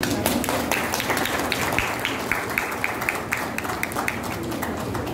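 Audience applauding, the clapping thinning out to a few scattered claps and stopping near the end.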